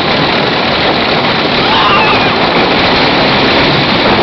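Loud, steady rushing noise of a wooden roller coaster ride: wind over the microphone and the train running on the track, with faint voices in it.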